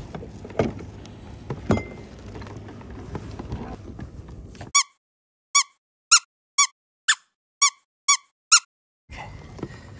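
A steady background hiss with two sharp knocks, then the natural sound cuts to dead silence and eight short squeaky-toy squeaks follow, about two a second. The squeaks are a comic sound effect laid over the bat blows that dispatch a hooked striped bass.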